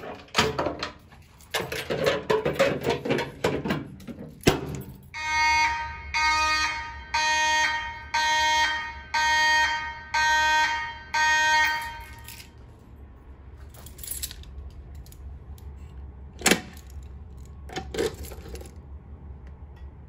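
Simplex fire alarm horn sounding in seven even pulses, about one a second, that cut off about twelve seconds in. Before it come irregular clicks and rustling, and later a couple of sharp knocks.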